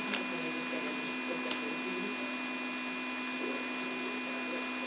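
Steady electrical hum and room hiss while trading cards are handled quietly, with one faint click about a second and a half in.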